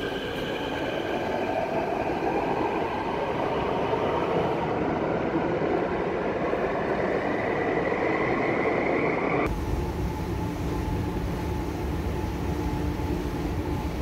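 Metro train pulling out of an underground station: a rumble under an electric motor whine that rises steadily in pitch as the train gathers speed. About two-thirds of the way through it cuts off abruptly, and a steady low hum follows.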